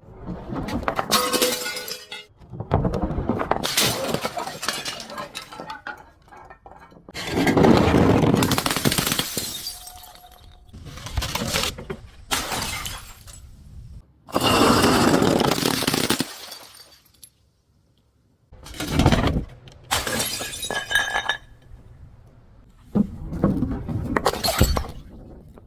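Glass bottles being broken and crushed: about nine separate bursts of shattering and crunching with some clinking ring, and a brief silent pause about two-thirds of the way through.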